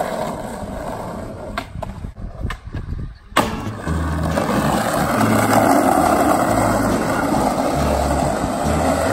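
Skateboard wheels rolling over rough concrete and asphalt, with a few sharp clacks of the board in the first few seconds. After an abrupt cut there is a louder, steady roll.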